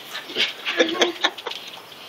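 Scattered young children's voices in a large room, with short clicks and knocks among them.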